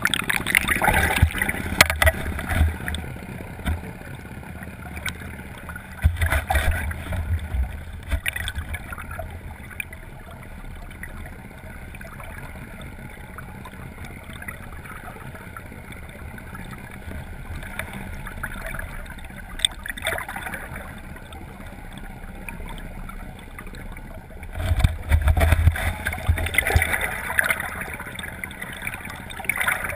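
Water gurgling and rushing around a GoPro HD Hero camera held on the end of a fishing net from a boat, heard through its waterproof housing. Bouts of loud low rumbling come at the start, about six seconds in and near twenty-five seconds in, with steadier, quieter water noise between.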